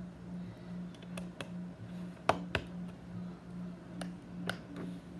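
Light sharp clicks and taps of small pieces being picked up and set down on a hard surface, about six in all, over a steady low pulsing hum.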